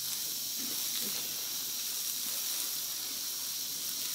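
Steady hiss of a wood cooking fire under an iron griddle, with a few faint crackles.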